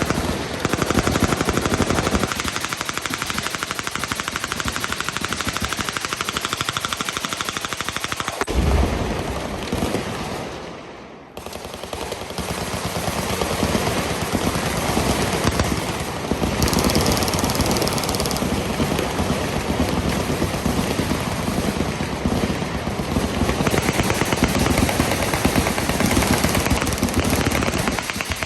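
Machine guns firing rapid, nearly continuous automatic fire, with a deeper boom about eight seconds in and a short lull around eleven seconds before the firing picks up again.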